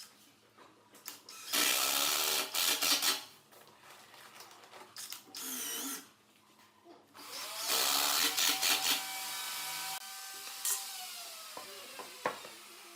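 Woodworking power tool run in two loud bursts with a quieter steady hum between them; after the second burst its motor winds down, the pitch slowly falling.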